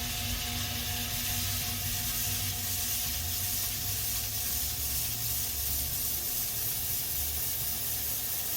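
Bauer 8-inch variable-speed bench grinder running with a KFMK 2x48 belt grinder attachment fitted: a steady hiss from the belt over a low motor hum.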